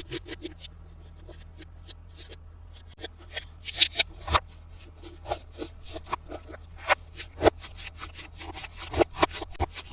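Hands handling a plastic Spider-Man toy playset and its packaging, making irregular clicks, scrapes and rubbing sounds, a few sharper knocks among them, over a steady low hum.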